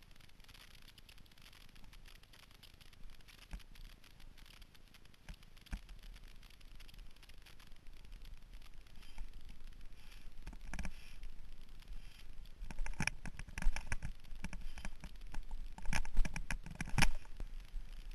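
Mountain bike rattling and clattering as it rolls fast over a rough dirt trail, the knocks coming thicker and louder in the second half, over a low rumble.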